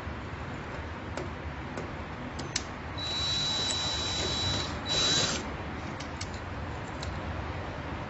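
Cordless drill-driver driving a terminal screw down onto a wire's ring terminal on a UPS terminal block: a few light clicks, then the motor runs with a high whine for under two seconds about three seconds in, followed by a shorter, louder burst as the screw is snugged down.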